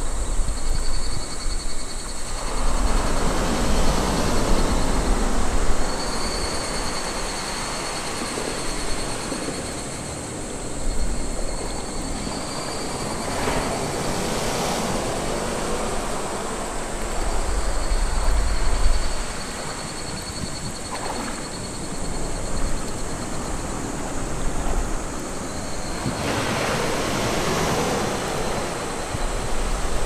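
Small waves breaking around a rock and washing up a sandy beach, the surf swelling several times, with a low, uneven rumble underneath.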